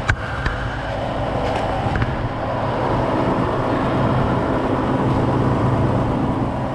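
Crane truck's engine running steadily, with a sharp metallic knock right at the start and a couple of lighter clicks in the first two seconds. The engine grows slightly louder about two and a half seconds in.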